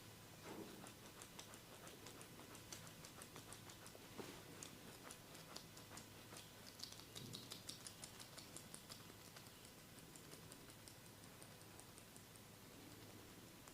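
Faint, rapid soft clicks and crackles from a barber's hands working on a person's head close to the microphone, thinning out near the end.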